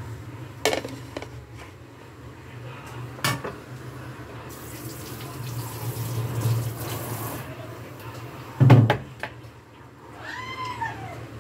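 Kitchen work at a counter: a plate and knife knock on the counter three times, the loudest a heavy clunk near the end, with a few seconds of hiss in the middle. A short squeaky chirp rises and falls just before the end, over a steady low hum.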